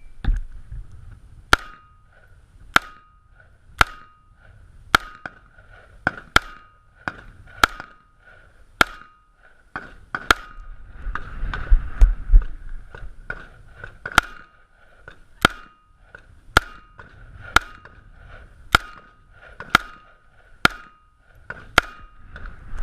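Gunshots fired in steady succession during a practical shooting stage, about one a second, roughly eighteen in all, loud sharp cracks each followed by a short ring.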